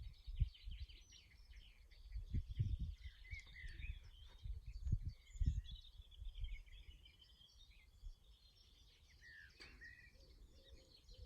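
Wren singing: fast, high trills and chirps over the first several seconds, with other birds calling more sparsely afterwards. A few low thumps about two and a half and five and a half seconds in.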